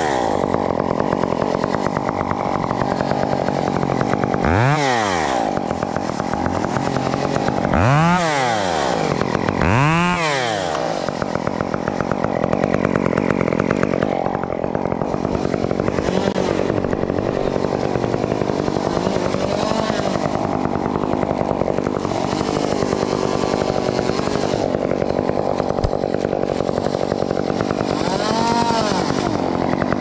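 Gas chainsaw running, revved up and let back down several times: once about five seconds in, twice close together around eight to ten seconds, and again near the end. It runs steadily in between.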